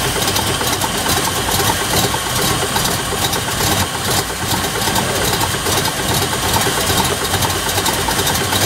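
Chevrolet LT1 V8 engine running at idle, with a fast, even ticking over the steady engine sound: the strange noise that the owner is trying to trace.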